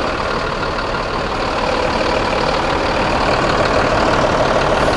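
City bus's diesel engine idling steadily, heard close up at the front grille.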